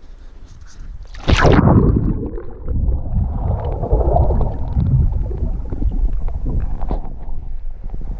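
Lake water heard through a camera held underwater: a loud sudden rush of water about a second in, then continuous muffled sloshing and gurgling against the camera housing.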